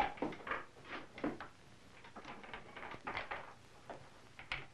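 Irregular metal scrapes and clinks, about a dozen short ones, from the chain and fittings of a hand-built rifle barrel-boring rig being handled.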